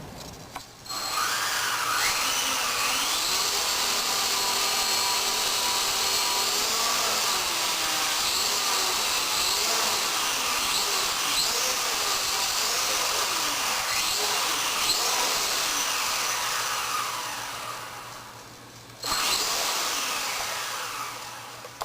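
Blade 130X micro RC helicopter's brushless motor and rotor head spooling up to a high-pitched whine. The whine holds with its pitch wavering up and down, winds down about 16 seconds in, then briefly runs up again near the end.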